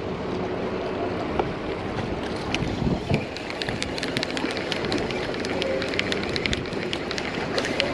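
Waterside ambience: water lapping and splashing at the shore with light wind on the microphone, with many small sharp ticks from about two and a half seconds in.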